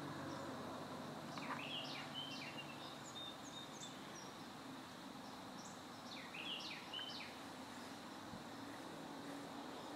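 A small songbird singing two short phrases of quick, high chirps and slurred notes a few seconds apart, over a faint steady hiss of open-field ambience.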